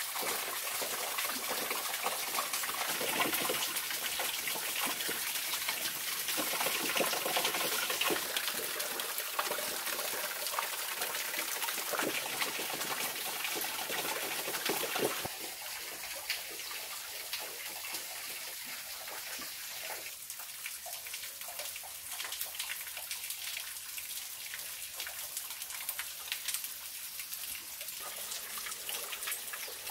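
Thin waterfall trickling and splashing onto rocks and into a shallow pool: a steady rush of water with many small drips. It becomes somewhat quieter about halfway through.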